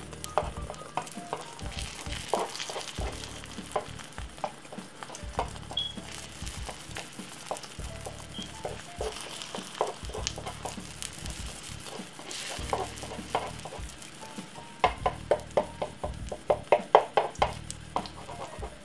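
Beaten egg frying in a nonstick pan with a light sizzle, under background music. Late on, a quick run of sharp clicks as a plastic slotted spatula taps and scrapes around the pan to loosen the omelette's edge.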